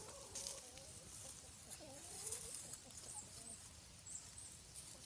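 Barred Plymouth Rock chickens clucking softly, with faint short murmuring calls, mostly in the first few seconds.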